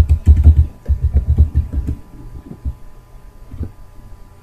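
Computer keyboard typing: a quick run of keystrokes with dull, thumpy low clicks for about two seconds, then a couple of single clicks.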